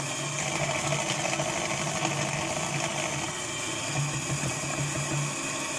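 Electric hand mixer running steadily, its beaters whipping butter, sugar and eggs into cake batter.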